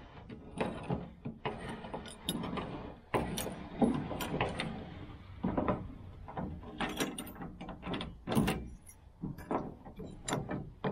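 Rebuilt chrome tailgate handle and lock mechanism of a 1968 Chevelle Nomad wagon being worked by hand: a string of irregular metallic clicks and clunks as the handle is swung and turned.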